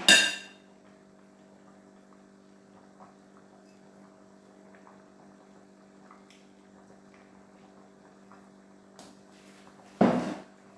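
Faint steady electrical hum, with a few faint ticks. A loud clatter right at the start and another about ten seconds in.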